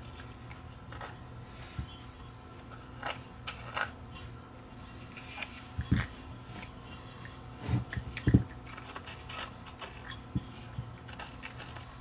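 Fingers scraping and picking old foam surround residue off a speaker driver's stamped metal frame: scattered faint scratches and clicks, with a few light knocks about halfway through as the driver is turned on the bench.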